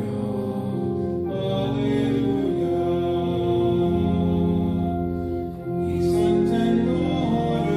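Slow church hymn music with long held chords that change every second or so.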